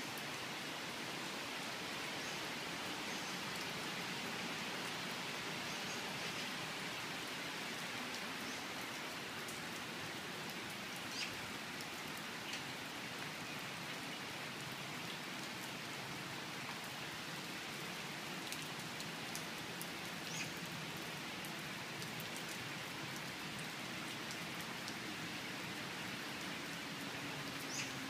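Steady summer monsoon rain falling on stone paving and leafy trees, an even hiss with a few sharper single drops ticking now and then.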